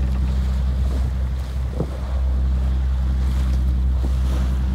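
A boat engine's steady low drone, with wind buffeting the microphone and waves washing against the hulls.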